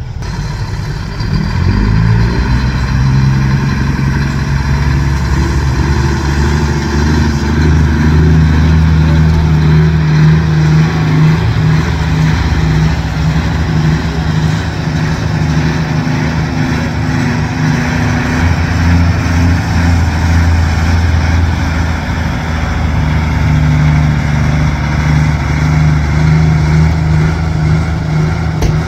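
Semi truck's diesel engine pulling away under load. It comes up loud about a second in and keeps running, its pitch rising and falling a few times as the truck gets moving.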